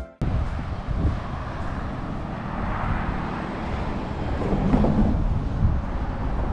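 Outdoor ambience dominated by wind buffeting the camera's microphone, an uneven low rumble and hiss, with faint road traffic noise underneath.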